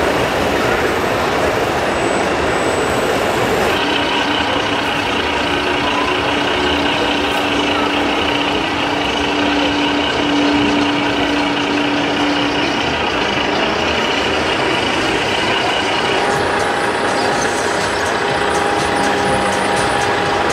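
Radio-controlled scale model trucks running their electronic truck-engine sound modules over the steady hubbub of a crowded exhibition hall.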